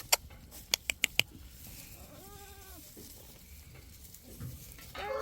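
A goat gives one short bleat about two seconds in, after a quick run of sharp clicks in the first second.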